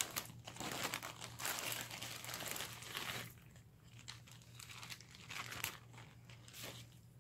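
Clear plastic bag crinkling as it is handled and rummaged through, busiest for the first three seconds, then softer, scattered crinkles.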